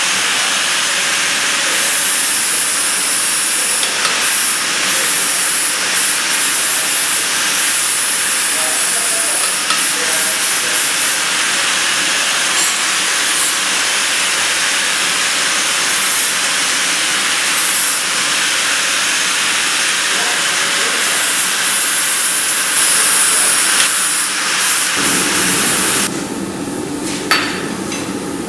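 A blacksmith's forge running with a loud, steady hiss. Near the end it gives way to a quieter, lower steady hum, and one sharp hammer knock rings out.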